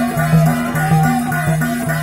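Traditional folk dance music: a quick, steady beat of two alternating low notes, with a rattle and a wavering melody line above.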